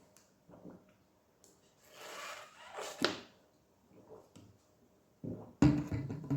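A few soft rustles and a sharp click, then about five and a half seconds in a person lets out a loud, low burp, the gas coming up from drinking Coca-Cola.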